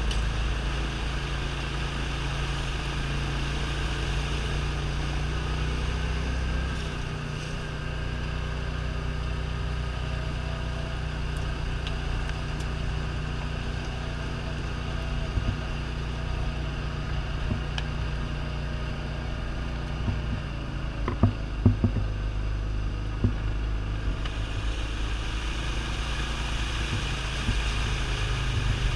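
Side-by-side UTV engine running steadily, heard from on board while driving through a shallow creek and over gravel, with water splashing around the wheels. A few sharp knocks come about 21 to 23 seconds in as the machine bumps over the ground.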